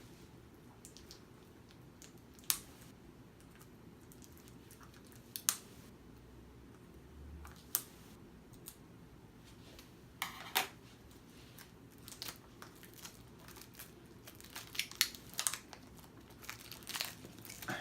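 Plastic shrink wrap on a Blu-ray case being picked at and torn off by hand, crinkling: a few sharp crackles apart at first, then denser crinkling in the last few seconds.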